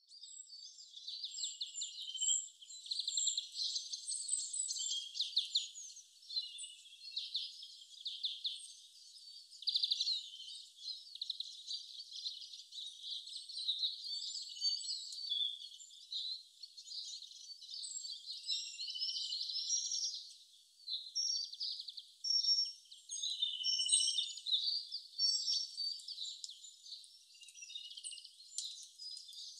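Songbirds chirping and trilling in a dense, continuous chorus of overlapping calls, thin and high with no low sound beneath.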